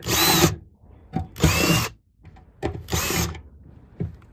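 Ryobi cordless drill with a small twist bit run in three short bursts, drilling through the rivet holes in an aluminium boat's gunwale. Each burst is a brief whine that rises as the motor spins up.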